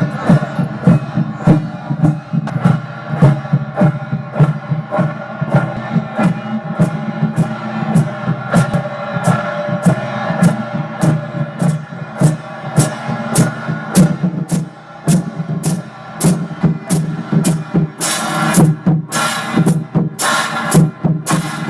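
Background music with a steady drum beat, a little faster than two beats a second, and sustained instrument notes; near the end come several louder hissing crashes.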